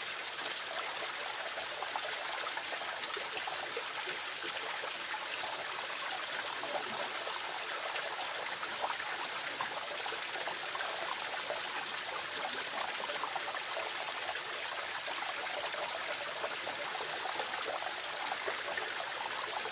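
Shallow forest stream flowing over and between pebbles, a steady babble and trickle of water with many small splashes.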